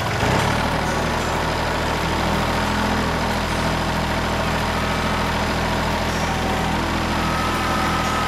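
Kubota compact tractor's diesel engine running steadily at an even pitch; a faint higher whine joins near the end.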